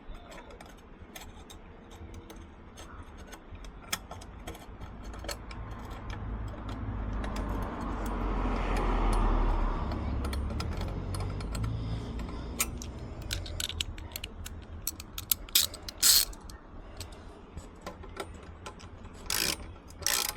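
Metal hand tools clicking and scraping on a motorcycle exhaust as a baffle is fitted into the end of the pipe, with scattered sharp clicks and a low rumbling swell in the middle.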